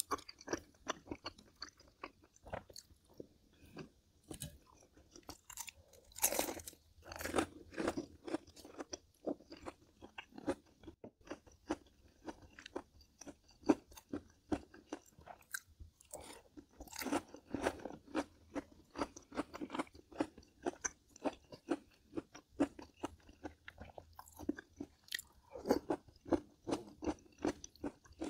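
A person chewing crunchy food close to the microphone: a quick, steady run of crisp crunches and bites, louder in a few bursts as fresh mouthfuls are bitten.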